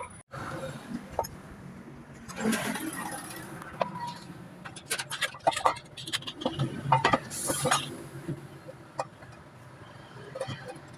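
Workshop handling noises: scattered clicks, knocks and scraping of tools and parts being handled, with two longer rustling swells.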